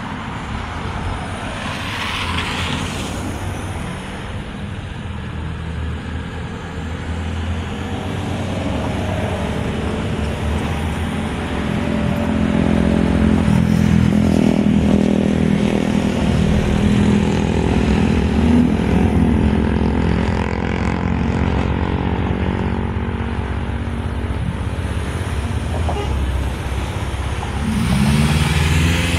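Road traffic: motor vehicles passing, with an engine hum that builds to its loudest through the middle as a vehicle goes by close in front, and a brief engine pitch sweep near the end.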